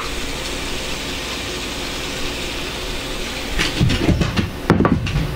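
Two aerosol cans of shave foam spraying at once into a bowl, a steady hiss. About three and a half seconds in, the hiss gives way to uneven handling noises.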